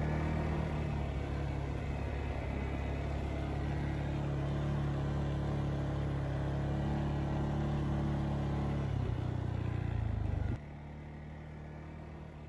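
ATV engine running steadily at riding speed. The engine note drops near the end, then the sound falls away abruptly.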